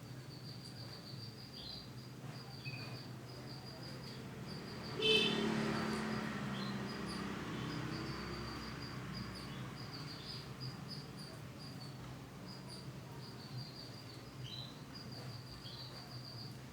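Short high chirps repeated at one pitch throughout, with a few brief falling chirps from a female canary. About five seconds in, a louder sound with several stacked tones starts suddenly and fades over a few seconds.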